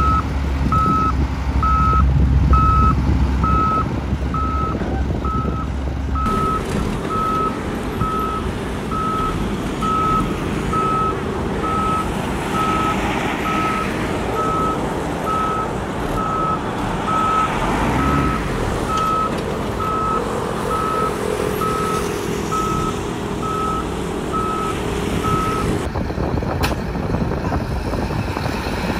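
Reversing alarm on heavy equipment beeping steadily, one tone about once a second, over the diesel engines of a wheel loader and a dump truck, as a truck stuck in sand is pulled out with a chain. The beeping stops near the end.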